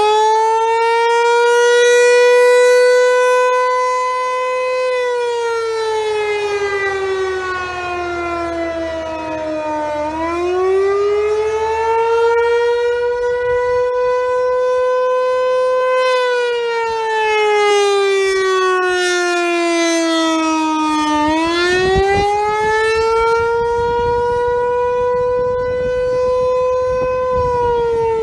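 American Signal T-128 electromechanical siren sounding the attack signal: a wail that rises over a few seconds, holds at the top, then slides back down, repeating about every ten seconds.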